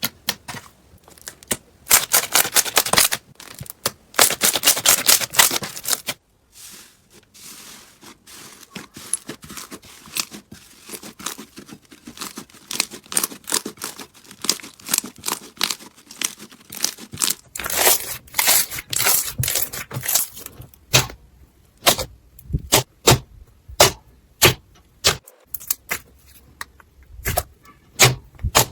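Slime being squeezed and poked by hand, giving sharp crackling pops and clicks. Denser crackling runs of a couple of seconds come near the start and again about two-thirds of the way through, with sparser pops between.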